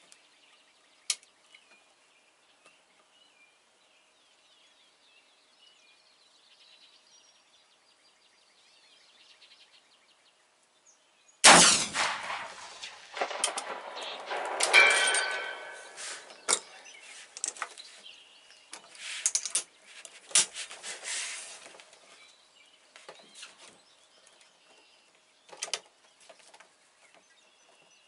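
A single .45-70 rifle shot about eleven and a half seconds in, the loudest sound by far, its report trailing off over a second or two. Scattered clicks and knocks follow for several seconds, with faint bird chirps in the quiet before the shot.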